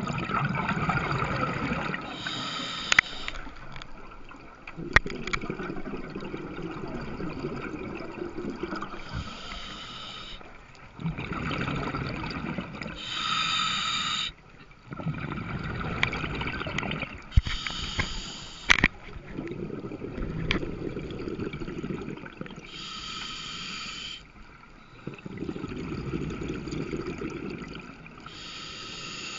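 A scuba diver breathing through a regulator: a short hissing inhale through the demand valve every five or six seconds, each followed by a longer low burble of exhaled bubbles. A few sharp clicks stand out.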